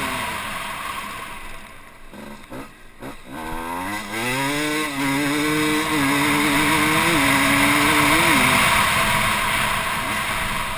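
Dirt bike engine heard from an on-bike camera. It falls off throttle around a jump, with a few sharp knocks about three seconds in, then revs back up and runs on through several gear changes. Near the end a loud rushing noise drowns the engine tone.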